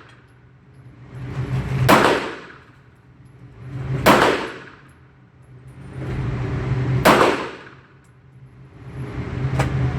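CZ40-B pistol in .40 S&W being fired, one shot every two to three seconds, four shots in all. A low steady hum of background noise swells up between the shots.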